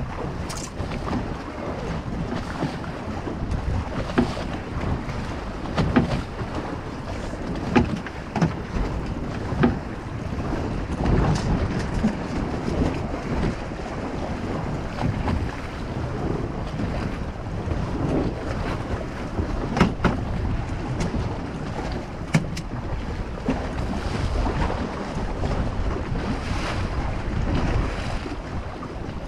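Choppy bay water slapping against a fiberglass boat hull, with wind buffeting the microphone. A handful of sharp knocks stand out here and there.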